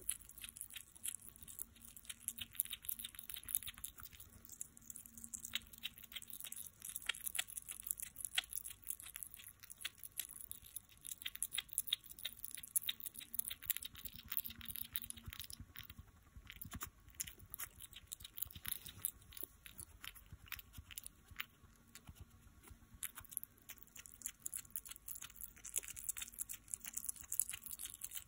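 Hedgehog chewing quail egg, close up: a continuous stream of small clicks and smacks from its jaws as it bites and chews.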